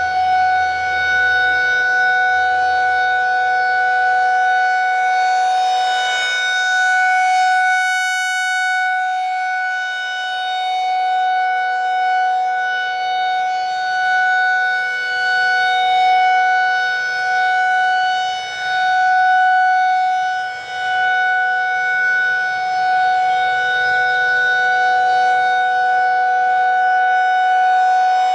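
Federal Signal 2001-SRN rotating electromechanical warning siren sounding a steady tone at full speed during a test. Its pitch holds constant while the loudness swells and fades as the siren head turns.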